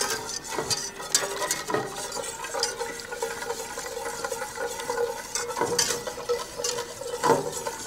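Wire whisk stirring briskly in a stainless steel pot of roux thinned with chicken broth, the wires scraping and ticking against the pan with a wet slosh. The roux is being whisked smooth into the broth so the flour doesn't clump.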